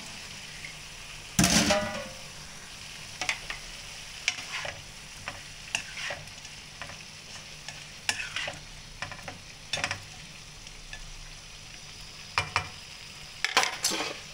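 Prawns and vegetables being stir-fried in a wok: a spatula scrapes and knocks against the pan over a steady sizzle. There is a louder clatter about a second and a half in and another near the end.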